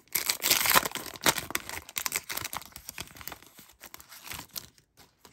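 A foil-wrapped Panini Prizm Draft Picks baseball card pack being ripped open by hand, the wrapper crinkling and crackling as it is pulled apart and the cards are slid out. The tearing is loudest in the first second or so and thins out to a few light crinkles before stopping near the end.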